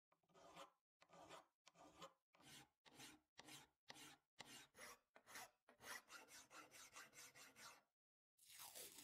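Steel hand file rasping over the poll of a forged steel axe head held in a vise, in repeated push strokes about two a second that come faster after the halfway point. Near the end, after a brief pause, there is a short burst of a different scraping noise that falls in pitch.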